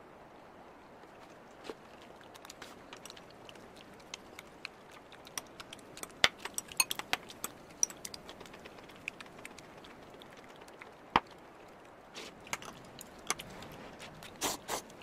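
Eating noises at a table: a metal spoon clicking and clinking against a bowl and a ramen cup in scattered light taps, busiest around the middle, with one sharper knock a little past the middle and a quick run of knocks near the end as the cup is moved.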